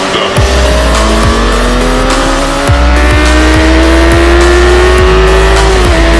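Honda CBR600 inline-four engine revving up in one long rising pull under electronic music with a heavy bass beat. The engine pitch drops a step near the end.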